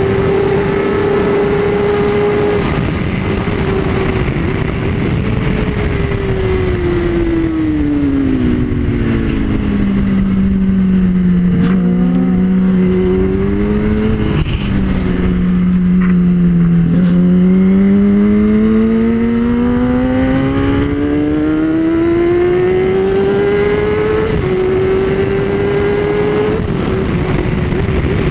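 Onboard sound of a Kawasaki ZX-10R's inline-four at high speed with heavy wind noise. The engine note falls steadily as the bike slows for a corner, stays low through the bend, then climbs again as it accelerates out onto the next straight.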